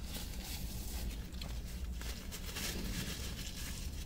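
Faint rustling of a paper napkin wiping the mouth and hands, over a steady low rumble in a car cabin.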